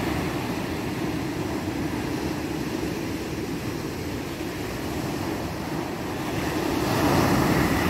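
Surf breaking on a sandy beach at night, with onshore wind blowing on the microphone; the wash swells louder near the end as a wave breaks.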